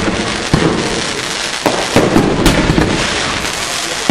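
Aerial fireworks display: about half a dozen sharp bangs of bursting shells, a few in quick succession in the middle, over continuous dense noise from the display.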